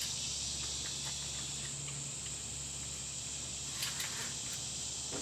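Faint clicks and scraping of a pump shotgun's barrel being worked onto its magazine tube, about four seconds in, over a steady high-pitched hiss. The barrel will not slide down into place, which the owner puts down to the magazine-tube washer binding or being pulled off.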